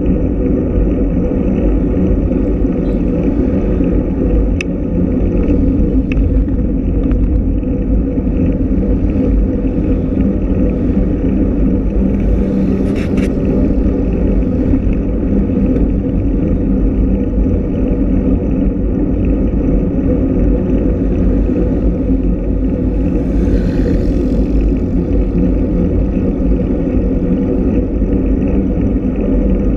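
Loud, steady low rumble of wind and road motion noise on a microphone moving along a road with a group of road cyclists, with a sharp click about five seconds in and short hisses around the middle and later on.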